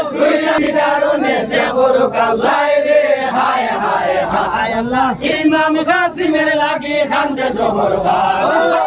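A group of men chanting and singing jari gaan, the Bengali Muharram lament song, together and loudly, with the voices of the surrounding crowd mixed in.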